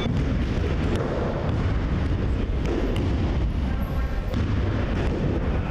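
Wrestling-hall training noise: a steady, loud rumble with dull thuds of wrestlers being thrown onto the padded mat and feet scuffing on it.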